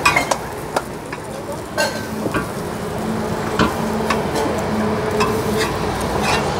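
Steel spatula tapping and scraping on a flat iron griddle as a kaladi kulcha is pressed and turned while it fries, with sharp irregular clicks every half second to a second over a steady noisy background.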